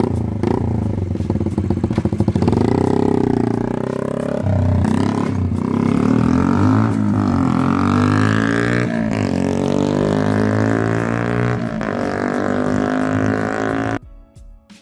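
A 50cc Dax-style minibike's four-stroke single running loud through an aftermarket Akrapovic-replica carbon silencer with its baffle removed. The pitch rises and drops several times as it is ridden away through the gears. The engine sound cuts off abruptly near the end, leaving faint music.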